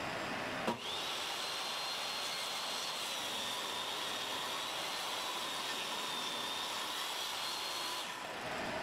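A power drill running with a steady high whine for about seven seconds, driving a screw into wood; it starts about a second in and stops near the end.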